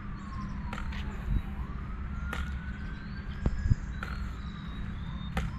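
A siren wailing, its pitch sliding slowly down and back up in long sweeps, over a steady low rumble with a few sharp clicks and knocks.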